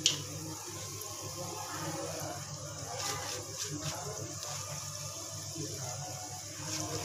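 Pakoras in gram-flour batter frying in hot oil in an iron kadhai: a steady sizzle. A sharp click sounds right at the start.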